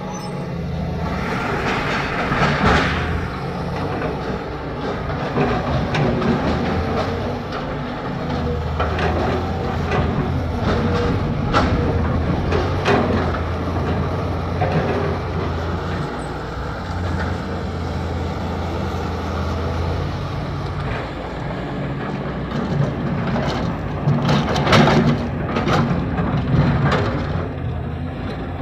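JCB 3DX backhoe loader's diesel engine running under working load, its note stepping up and down, with repeated metallic clanks and knocks from the digging and loading, a dense cluster of them near the end.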